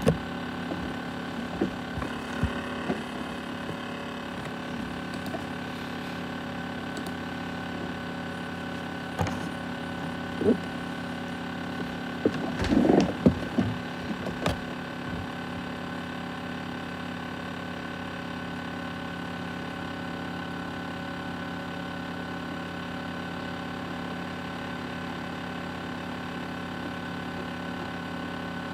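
ASUS X543UA laptop running, its cooling fan and drive giving a steady whine made of several fixed tones. It is broken by a few sharp clicks in the first ten seconds and a brief cluster of knocks and rustling about twelve to fourteen seconds in.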